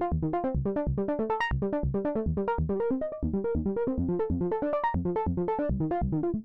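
Looping synthesizer pattern, quick repeating pitched notes, about five a second, over a pulsing bass, played through a resonant FabFilter Volcano 3 filter whose cutoff and peak are being changed, so the tone brightens and dulls.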